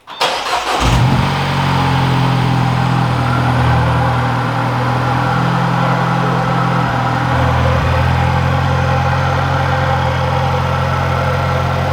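Mini Cooper S's turbocharged four-cylinder engine starting, catching at once with a short flare of revs, then idling steadily without the rattle: the loose exhaust brackets behind it have been tightened.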